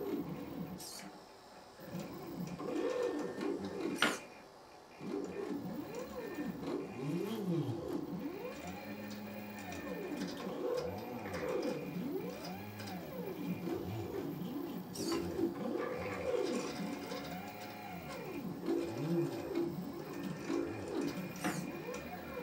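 Stepper motors of a 3D-printed uStepper robot arm whining in arching tones that rise and fall as each move speeds up and slows down, with short pauses between moves. A sharp click about four seconds in, and another about two-thirds of the way through.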